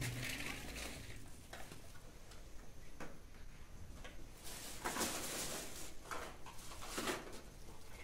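Faint rustling and small clicks of a clear plastic bag and a cardboard medicine box being handled, with the loudest rustles about five and seven seconds in.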